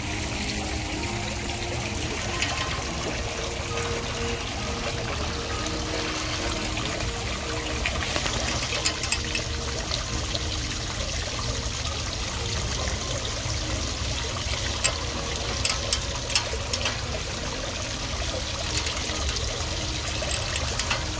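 Water trickling and splashing steadily as thin streams and drops fall off the ledge of a decorative water feature into a shallow pool. A few sharper splashes or ticks stand out near the middle.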